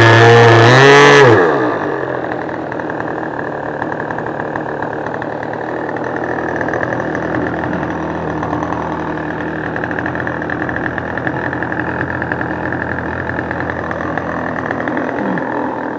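Small engine of a vintage radio-controlled model plane at full throttle: loud and close for the first second, then its pitch slides down and the level drops as the plane passes and pulls away, leaving a steady buzzing drone in the air.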